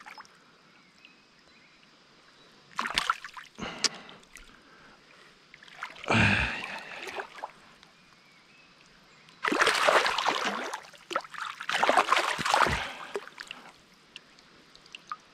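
A hooked trout thrashing in shallow river water while held and unhooked by hand, in several short, irregular bursts of splashing a few seconds apart.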